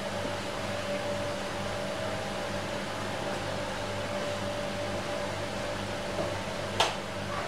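A steady electric hum and hiss, with one sharp knock near the end.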